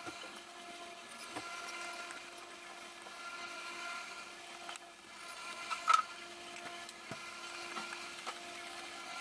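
A steady pitched hum with several faint clicks, and one sharp click about six seconds in.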